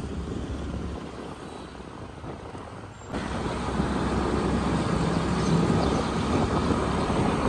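Steady engine and road noise of a vehicle on the move, with a low rumble. About three seconds in it switches abruptly to a louder, rumbling stretch.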